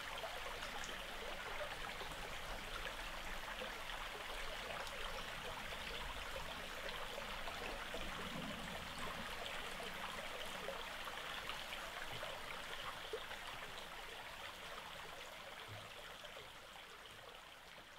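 Shallow rocky forest brook running steadily over stones, a continuous gurgling water sound that grows gradually quieter over the last few seconds.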